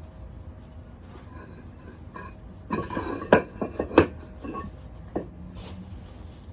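Concrete pavers clinking and knocking against each other as they are handled, about eight sharp hard strikes over two and a half seconds, the loudest two a little over three seconds in and about a second later.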